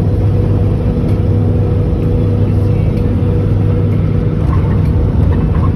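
Vehicle engine and tyre noise heard from inside the cab at highway speed: a steady low drone with a faint held tone above it.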